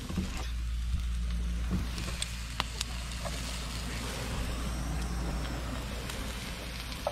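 Squid and octopus sizzling in oil in a frying pan on a portable gas stove, with a few light clicks of metal tongs against the pan over a steady low rumble.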